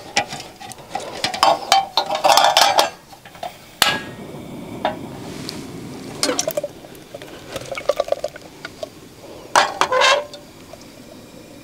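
Metal cookware clinking and knocking as a portable camp stove is set up and a cooking pot is set on it, in a run of short sharp knocks and clinks that is busiest in the first three seconds and again near the end.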